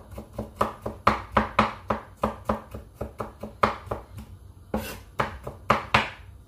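Chef's knife chopping garlic on a wooden cutting board: quick knocks about four a second, with a short pause about four seconds in.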